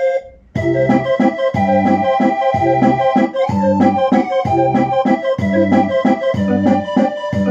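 Electronic barrel organ playing a tune with an organ voice over a drum and bass accompaniment that keeps a steady beat about once a second. A short held chord and a brief pause come before the tune starts, about half a second in.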